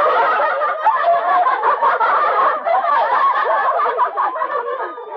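A group of girls laughing together, many voices overlapping, easing off slightly near the end.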